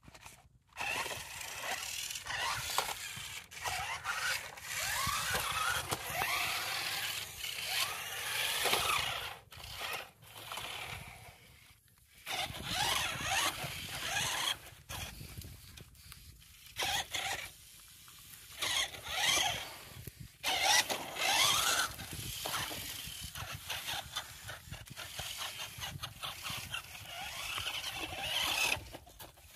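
Toy RC rock crawlers' small electric motors and plastic gearboxes whining, rising and falling in pitch as they drive and stop, with wheels scraping through sand. The sound cuts out suddenly several times.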